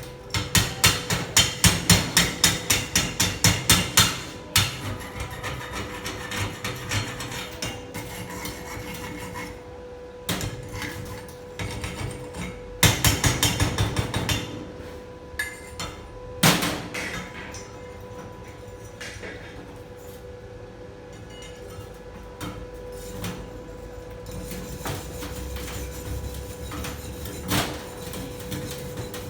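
Hammer striking metal in quick runs of about four to five blows a second, first for about four seconds, then again briefly about halfway through, with a couple of single strikes later. A steady hum runs underneath.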